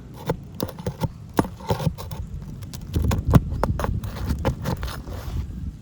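Irregular clicks, taps and knocks of hand roofing work on asphalt shingles, several a second, over a low rumble.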